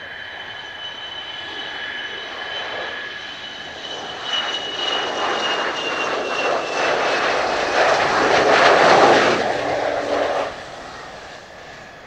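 Jet noise from an F-4EJ Kai Phantom II's twin J79 turbojets on landing approach. A high whine slowly falls in pitch while the rushing engine noise builds to its loudest about nine seconds in, then drops off suddenly.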